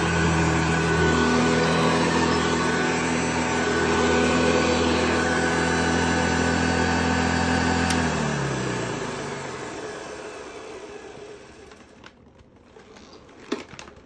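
Vintage 1960s Penncrest cord-reel upright vacuum cleaner, built by Hoover, running with a steady motor hum. About halfway through there is a click, and the motor winds down, its hum falling in pitch and fading away over a few seconds. A short knock comes near the end.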